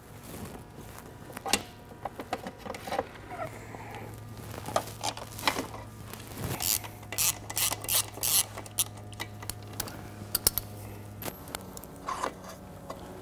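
Hand tools working the nuts and bolts of a motocross bike's rear suspension linkage: a wrench ratcheting in quick runs of clicks, with metal clinks and knocks in between, as the linkage is taken apart. A steady low hum runs under it from about three seconds in until near the end.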